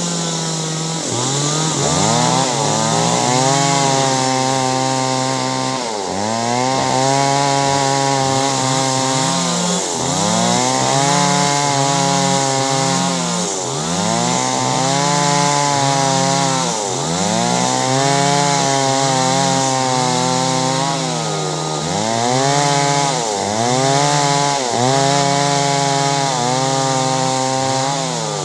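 Chainsaw running hard while cutting clove-tree wood, its engine pitch dipping sharply and climbing back again and again every few seconds as it bogs in the cut and recovers.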